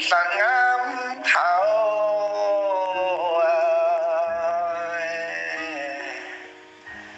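A song: a singer holds one long, wavering note over a backing of steady sustained tones, and the voice fades out near the end.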